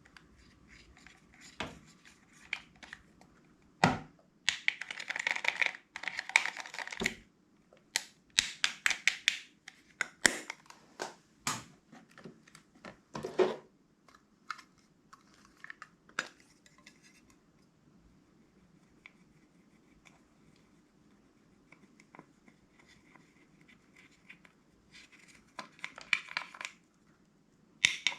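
Hands working clear slime and its containers: irregular bursts of crackly, sticky clicking and scraping with sharp single clicks. The bursts fall in the first half and again near the end, with a quieter stretch of faint ticks in between.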